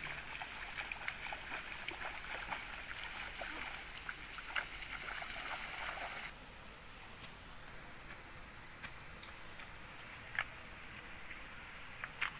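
Feet wading and splashing through shallow muddy water, with many small splashes. About six seconds in the splashing cuts off abruptly, leaving a steady high-pitched hiss and a few scattered footsteps on dirt.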